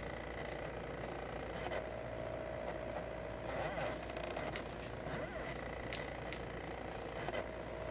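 Stepper motors of a small diode laser engraver driving the laser head across its engraving path: a steady motor whine with short rising-and-falling pitch sweeps every couple of seconds as the head slows and turns, and a few sharp clicks.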